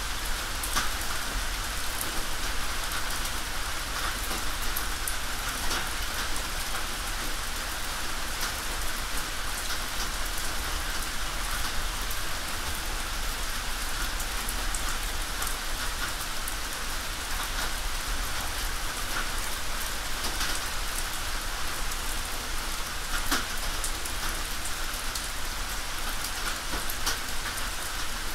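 Rain falling steadily on a tin roof: an even patter with many individual drops striking sharply here and there.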